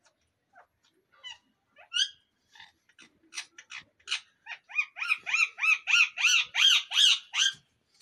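Rose-ringed parakeet calling: a few scattered short chirps, then a fast run of loud, repeated arched calls, about three a second, over the last three seconds.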